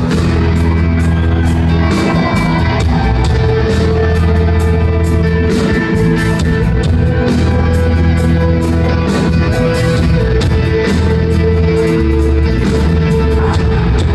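A rock band playing live, heard from the audience: strummed acoustic guitar with electric guitars and drums, in a passage without singing.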